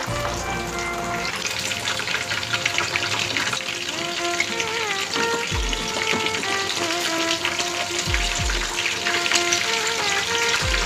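Hot oil sizzling and crackling steadily around masala-coated bangda (Indian mackerel) frying in a shallow pan. A few low thumps come in the second half as the fish are turned with spatulas.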